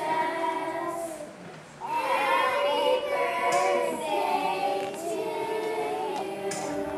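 Children's choir singing together, with a brief dip between phrases about a second in before the voices come back in.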